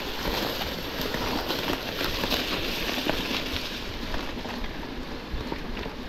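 Mountain bike riding over rough ground: a steady hiss of tyres on gravel and dirt, with frequent small clicks and rattles from the bike.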